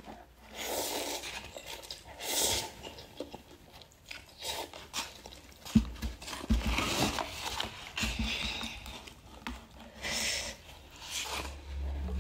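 A person slurping and chewing instant cup noodles close to the microphone, in repeated wet bursts a second or two apart. A few dull knocks come about halfway through.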